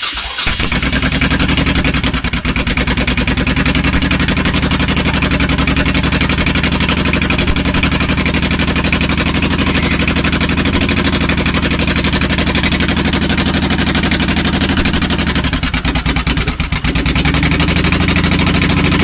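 1998 Honda Shadow Spirit VT1100C's V-twin running through straight drag pipes with a steady, deep pulsing exhaust beat, on its first start-up while its fuel pump still needs replacing. About three-quarters of the way through, the beat briefly falters, then steadies again.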